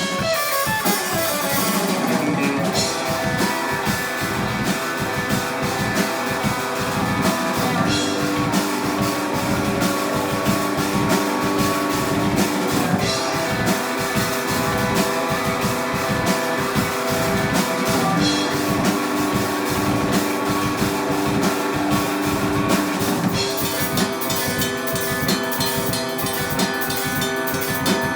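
A rock band playing live: guitar over a steady drum-kit beat, going without a break.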